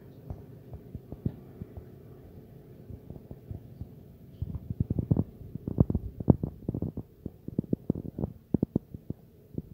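Irregular series of dull, muffled thuds and knocks, sparse at first and coming thick and fast from about four and a half seconds in, over a faint steady low hum.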